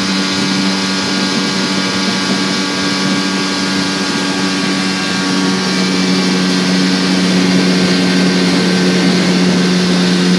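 Outboard motor running steadily at speed, driving a small open aluminium boat, over a constant rush of water.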